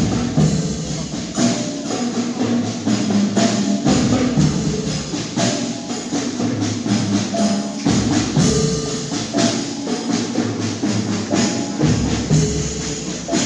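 Javanese bregada marching music: drums and small cymbals keep a steady march beat under a simple melody line.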